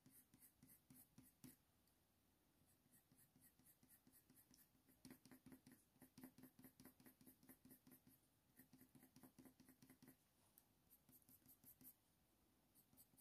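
Faint scratching of a Faber-Castell Polychromos coloured pencil on hot-press watercolour paper, laying down quick short strokes several times a second to shade fur, with a brief pause about two seconds in.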